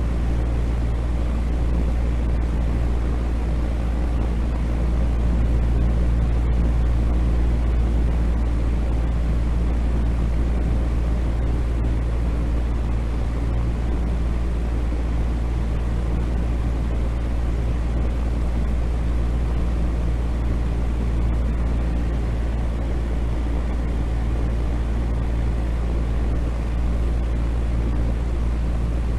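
Steady, unchanging rumbling noise from a sleep noise track, heaviest in the deep bass and thinning out toward the high end, with a faint low hum in it.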